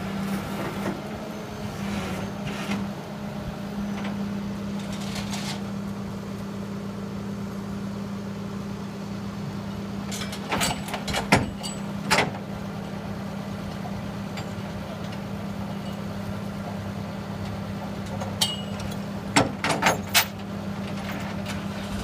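Heavy vehicle engine idling steadily, with a few sharp knocks and clinks in two short groups, about halfway through and near the end, as the skid steer is worked on at the front of the tow truck's bed.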